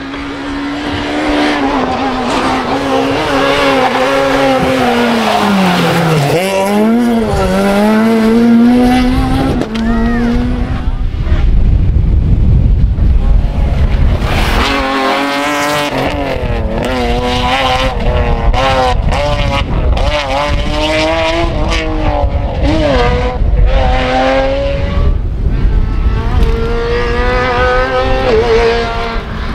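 Rally cars at racing speed on a twisting tarmac stage, one after another. The engine note drops while a car brakes for a bend, about five seconds in, then climbs again as it accelerates. Later the revs rise and fall sharply through gear changes.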